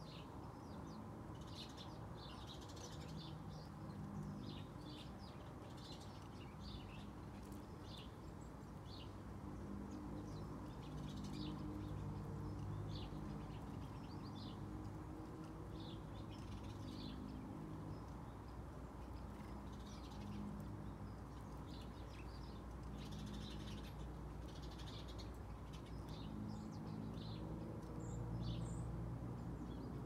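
Small songbirds giving short, repeated chirps, scattered throughout, over a low steady hum.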